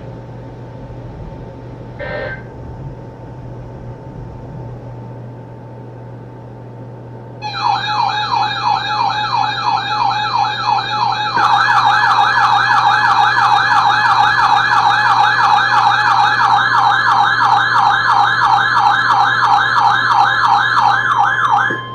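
Electronic warbling alert siren of a weather radio receiver, sounding for an incoming warning: it starts abruptly about seven seconds in as a rapid up-and-down wail, grows louder about four seconds later as more warbling tones join, and cuts off just before the end. Before it there is only a faint steady hum.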